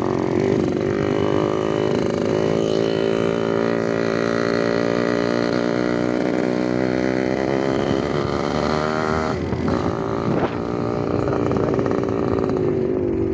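Small motorcycle engine running steadily under way as the bike is ridden along the road.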